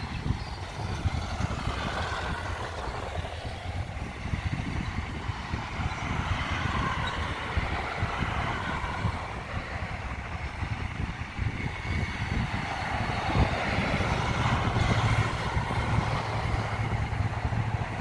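Classic cars and motorbikes driving past, a steady mix of engines and tyres that swells and fades as vehicles go by. A deeper engine hum grows louder about fourteen seconds in.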